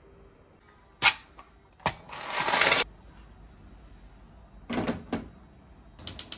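Bowls being handled on a kitchen counter. Two sharp knocks about a second in, then a scraping slide that swells for most of a second. Two duller knocks come around five seconds, and a quick run of clicks starts near the end.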